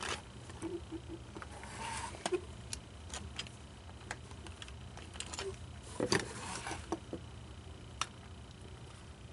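Scattered small clicks, taps and rattles of small plastic and metal parts being handled, with a louder clatter about two seconds in and again about six seconds in.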